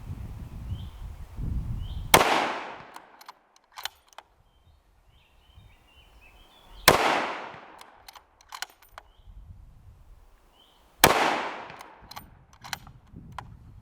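Bolt-action rifle fired three times, about four to five seconds apart, each shot sharp and loud with a long fading echo. Light clicks are heard between the shots.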